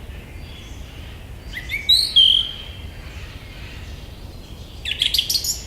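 Forest songbirds calling over a steady, faint woodland background. A quick run of sweeping chirps about two seconds in ends in a falling whistle, and a burst of rapid chirps follows near the end.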